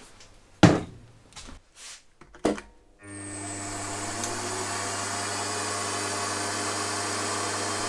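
Two sharp knocks, the first the loudest, then about three seconds in a bench milling machine's spindle motor switches on, spins up over about a second and runs with a steady hum.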